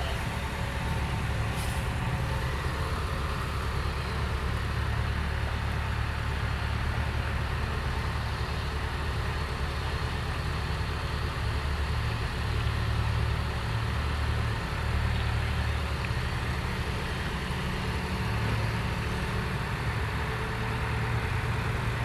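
Case Super K backhoe loader's diesel engine running steadily, swelling a little twice around the middle. A single short click about a second and a half in.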